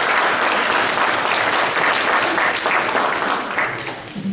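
Audience applauding, a dense patter of many hands clapping that fades off near the end.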